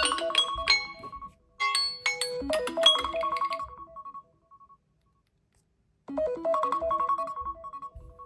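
Smartphone alarm ringtones playing a chiming, bell-like melody with repeating notes. It dies away and stops about four and a half seconds in, and an alarm melody starts again about a second and a half later.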